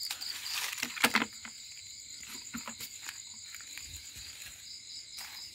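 Night insects chirring in a steady, high-pitched chorus, with rustling and a few sharp clicks in the first second or so as the camera is moved through dry leaves.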